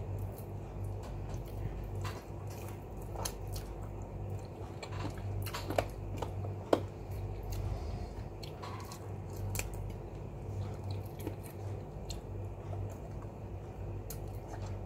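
Close-up eating sounds: chewing and small wet mouth clicks as chicken adobo is pulled off the bone by hand and eaten, with two sharper clicks about six seconds in. A steady low hum runs underneath.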